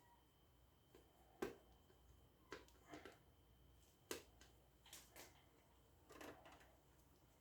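Faint, irregular light clicks and taps, about seven in all, of small fan parts being handled and fitted together.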